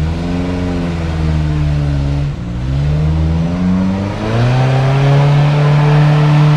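Off-road 4x4's engine revving under load as it climbs a muddy track, the revs dipping twice and building again, then held high and steady for the last couple of seconds.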